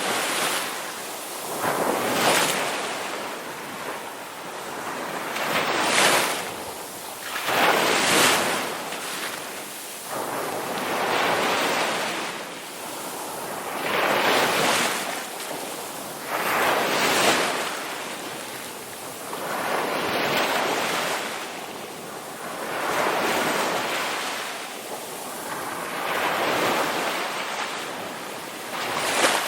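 Sea waves crashing on a shore: the surf rushes up in a fresh surge every two to three seconds and fades between them.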